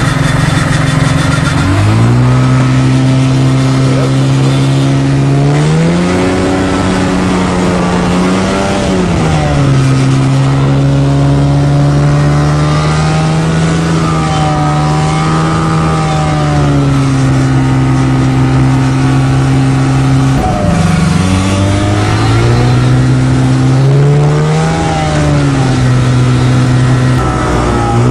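Light aircraft's piston engine and propeller heard from inside the cockpit, running at high power with the note rising and falling several times and dipping briefly about twenty seconds in, as the plane works through sticky snow.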